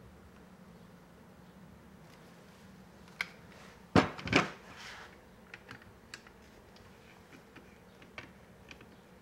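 An AR-15 lower receiver with its A2 rifle stock set down on the workbench, two knocks about four seconds in after a single click, followed by scattered light clicks and ticks of parts being handled.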